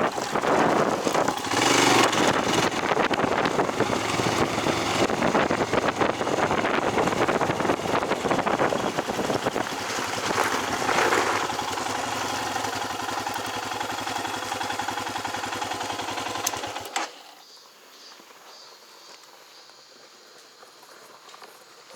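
Motorcycle engine running with wind noise over the microphone, then cut off abruptly about seventeen seconds in, leaving only faint background noise.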